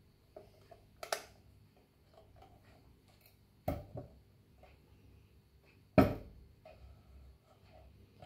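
A white plastic lamp housing knocks against a wooden table top three times as it is handled, set down and tipped over. The last knock, about six seconds in, is the loudest. Faint plastic clicks and rubbing come between the knocks.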